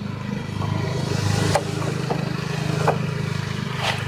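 A steady motor hum, like an engine running, with three sharp knocks about a second apart.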